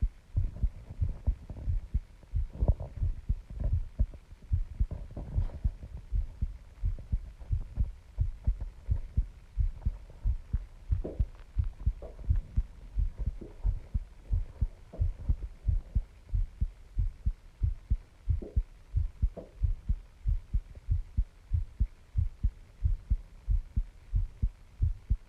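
A person's heartbeat picked up close, a steady, regular run of low thumps.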